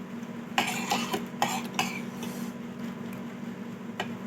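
A spoon clinking and scraping against a bowl of soup: a cluster of clicks and scrapes in the first half, then a single clink near the end, over a steady low hum.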